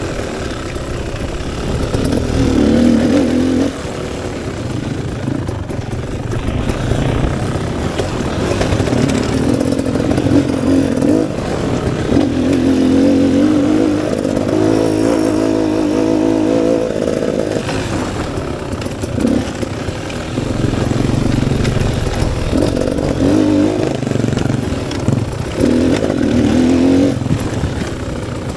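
Single-cylinder two-stroke engine of a Beta 300 Xtrainer enduro motorcycle being ridden on a dirt trail, its note rising and falling again and again as the throttle is opened and closed.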